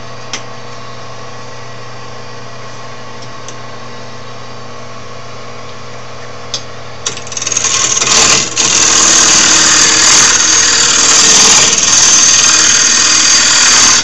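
Wood lathe motor running steadily with a light hum while an out-of-round oak blank spins, then about halfway through a turning tool bites into the wood, giving a loud, rough cutting noise that continues with a brief dip and stops suddenly at the end.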